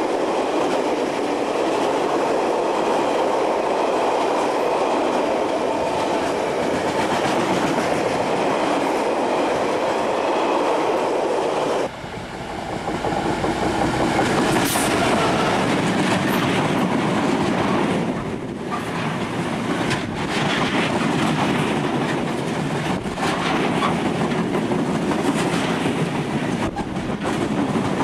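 Freight trains passing close at speed: steady rumble and clatter of wagon wheels on the rails. About twelve seconds in it changes to a Class 66 diesel locomotive, with its two-stroke V12 engine, coming past at the head of cement tank wagons, followed by a run of sharp wheel knocks over the rail joints.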